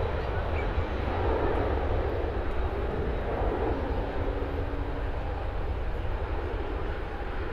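Jet airliner engines running, a steady deep rumble with a continuous hiss above it.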